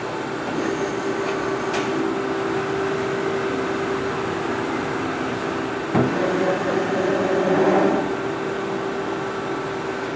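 DMG Mori Dura Vertical 635 Eco CNC vertical machining center homing its axes: the servo-driven slides travel with a steady whine. About six seconds in there is a knock, and the travel runs louder for the next two seconds.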